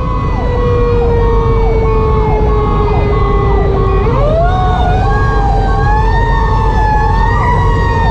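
2010 Pierce Velocity fire engine's sirens, heard from the cab over the Detroit Series 60 diesel and road rumble. A Federal Q2B mechanical siren winds slowly down in pitch, then spins back up and wails about four seconds in. Under it, the Sho-Me Powercall electronic siren repeats quick falling sweeps about twice a second.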